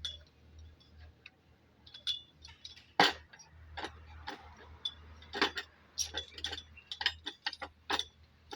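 Scattered metallic clinks and taps of tools and shock-absorber parts being handled on a workbench, a dozen or so irregular knocks with a sharper one about three seconds in.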